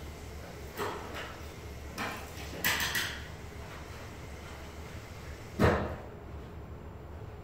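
A few short knocks and bumps, then a single heavier thud about five and a half seconds in, over a steady low hum.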